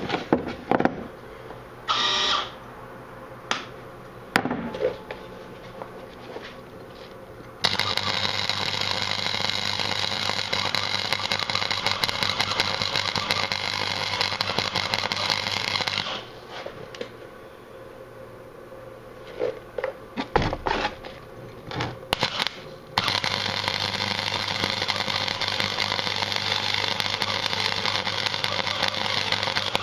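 Gasless flux-core wire welder arc crackling steadily over two weld runs of several seconds each, with a short pause between, over the welder's steady hum; a few brief sputters come first. The wire feed is stuttering and jumping during the runs, a fault whose cause is not known.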